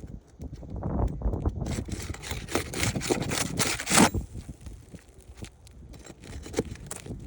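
Flat pry bar scraping and working under asphalt roof shingles, lifting them and breaking them loose, in a run of irregular scrapes and knocks with the loudest about four seconds in.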